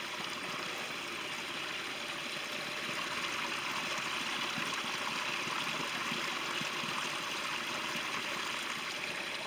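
Small, shallow, stony brook babbling steadily over pebbles, a continuous even sound of running water.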